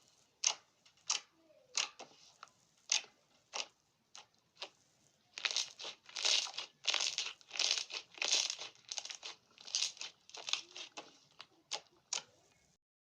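Slime being squeezed and worked by hand, giving sharp single pops about every half second, then a denser run of crackling for several seconds, then a few last pops.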